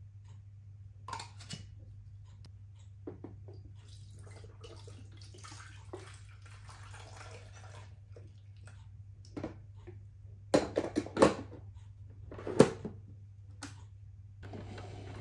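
Water poured from the glass carafe into a Philips drip coffee maker's reservoir, a soft splashing pour lasting a few seconds, followed about ten to twelve seconds in by several sharp knocks and clinks of the glass carafe being handled and set back on the machine. A steady low hum runs underneath.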